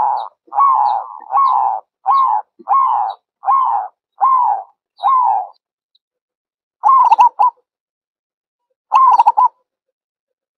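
Zebra dove calling: a steady run of about eight short coos, each under half a second, then after a pause two quick stuttering, rolling calls.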